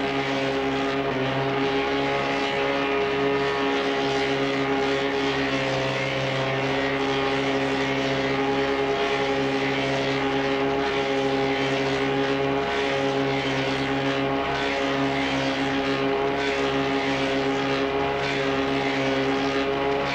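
Motor-driven clog-boring machine running steadily, its spoon bit cutting into a wooden clog: a steady hum of even tones with a rough hiss of wood being cut above it.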